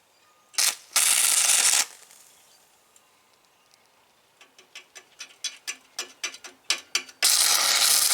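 Stick-welding arc powered by three car batteries, struck in two short bursts of about a second each, with a run of quick sharp ticks between them. The current runs too hot for the thin metal, so the weld is laid in short bursts to build it up without burning through.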